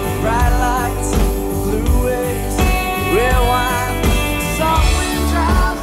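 Live band playing, with electric guitars over drums.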